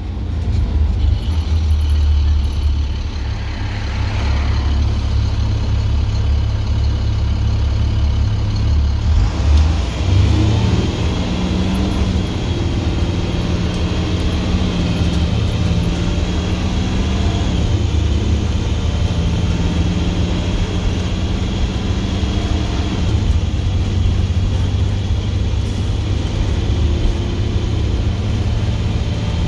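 Straight-piped International DT466E inline-six diesel heard from inside the cab, pulling away and accelerating with a loud, deep exhaust rumble. About a third of the way in it settles into a steady cruise, and the engine note steps a few times as the Allison 2500 automatic shifts gears.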